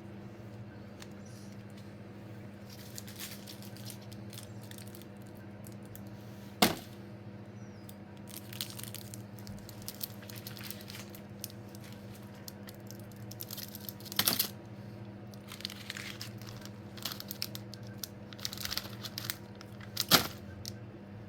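Sweet and candy wrappers crinkling and tearing as packaged sweets are unwrapped, in irregular rustling spells with three sharp snaps along the way, over a steady low hum.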